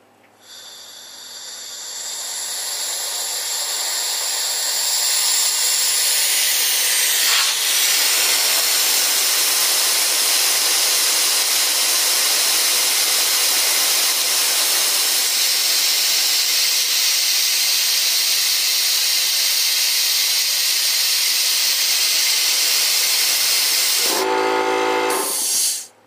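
Compressed air hissing out of a Central Pneumatic air compressor's tank through its opened outlet valve, bleeding the tank pressure down toward the pressure switch's cut-in point. The hiss builds over the first few seconds, holds steady, and stops suddenly near the end with a brief whistle as the valve is shut.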